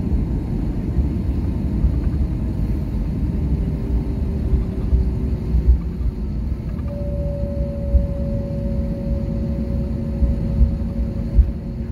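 Airliner cabin noise on the ground before take-off: the low rumble of the jet engines at idle, with a few small knocks. A faint steady whine comes in about seven seconds in and slowly drops in pitch.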